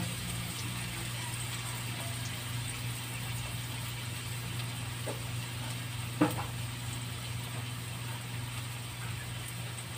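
Steady low hum with a faint even hiss, and one sharp knock a little after the middle.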